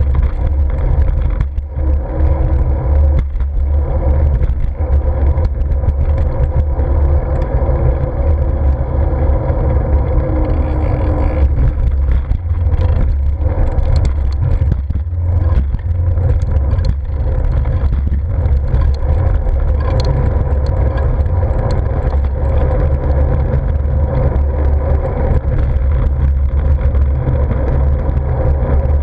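Wind buffeting the microphone of a GoPro on a moving bicycle: a loud, steady low rumble, with road noise and small knocks from riding over the surface.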